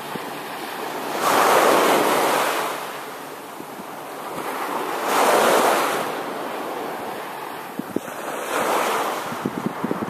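Small waves washing up on a sandy beach, swelling and fading three times, with wind buffeting the microphone.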